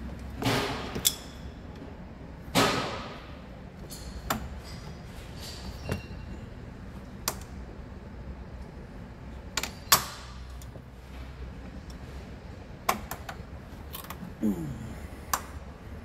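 Wrench and metal engine parts clinking and knocking as they are worked under the hood: about a dozen sharp, separate clicks and clanks at uneven intervals, over a low steady hum.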